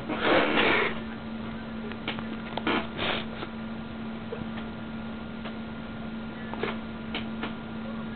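A sneeze: a short burst of noise through about the first second. A few faint clicks and snuffles follow over a steady low hum.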